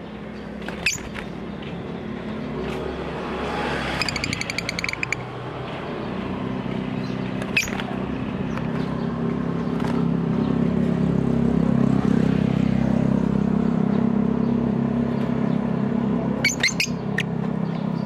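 A motor vehicle's engine running nearby, a steady low hum that grows louder toward the middle and holds there. Over it come a few sharp chirps from caged lovebirds and a quick chattering call about four seconds in.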